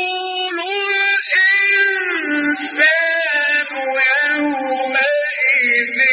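A male Quran reciter's voice chanting in the melodic mujawwad style. One long ornamented phrase slides up and down in pitch, then settles into a held, wavering note near the end.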